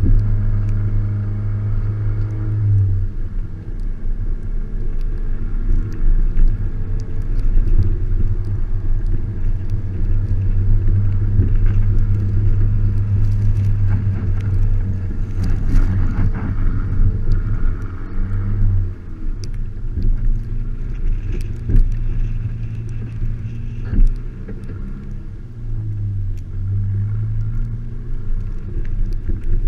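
Volkswagen Mk5 GTI's 2.0-litre turbocharged four-cylinder engine running as the car is driven on snow, heard from a camera mounted outside on the body. The engine note is mostly steady, with the revs dropping and changing a few times, and occasional sharp knocks.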